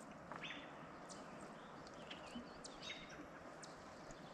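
Faint, scattered bird chirps, several short calls spread through the stretch, over a quiet steady background.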